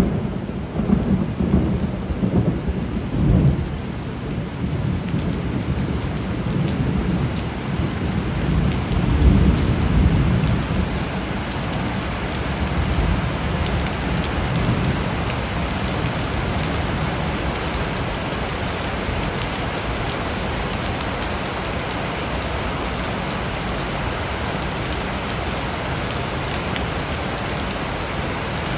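Steady heavy rain with rolling thunder rumbling through roughly the first ten seconds, then fading, leaving the rain alone.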